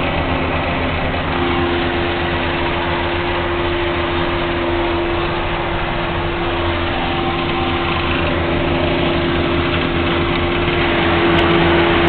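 Steady drone of a tractor engine heard from inside its cab, with a Claas forage harvester working alongside; a hum holds one pitch throughout, growing a little louder near the end.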